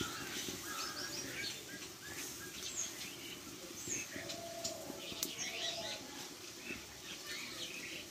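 Small birds chirping in short, scattered calls over a low steady background.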